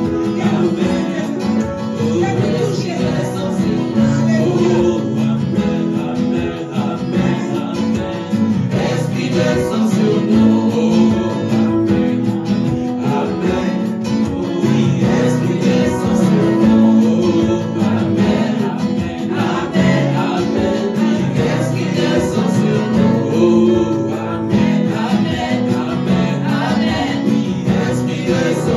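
Live gospel worship music: a small group of singers singing into microphones, accompanied by a Technics KN1000 electronic keyboard.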